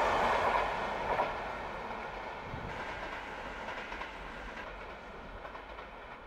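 Passenger train running past on the rails, its noise loud at first and fading steadily as it draws away.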